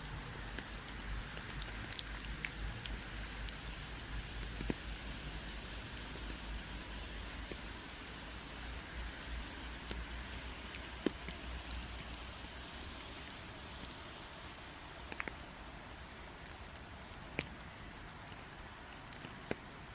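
Rain falling steadily, with scattered sharper drops.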